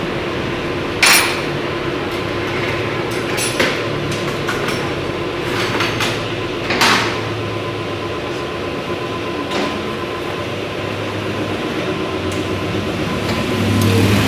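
Suzuki Raider 150 motorcycle engine running steadily, with a few sharp metallic clicks from tools or parts, and getting louder near the end.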